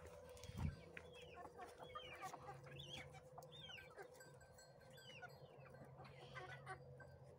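Chickens clucking softly, with frequent short high chirps and calls scattered throughout.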